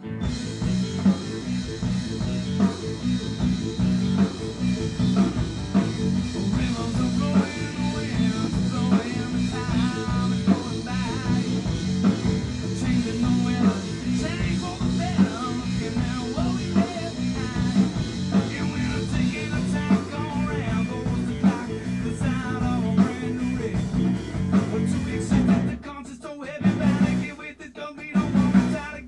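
A rock band playing a blues-rock song together: guitar, keyboard and drum kit, with a strong steady low end. The music breaks off briefly near the end before picking up again.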